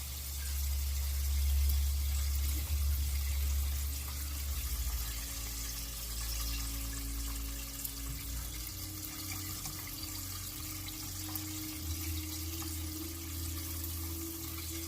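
Flour-coated chicken thighs frying in hot vegetable oil: a steady sizzle, with a low hum underneath that shifts in level twice.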